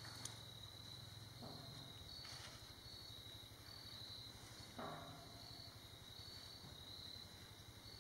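Faint outdoor ambience: a steady high insect trill that pulses on and off, with a few soft scuffs, the loudest about five seconds in.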